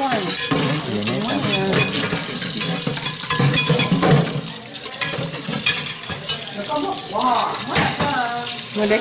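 Raw shrimp being handled in a steel pot, with light clinks of metal, over a steady high hiss of frying. Voices talk in the background throughout.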